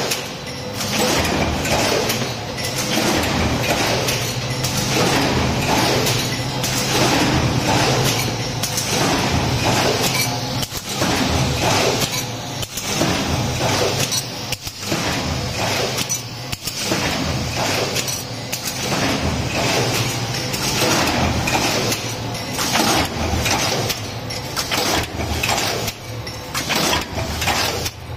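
Transfer stamping press line running: a steady machine hum under rapid, continual metallic clinking and clattering of the sheet-metal parts and tooling.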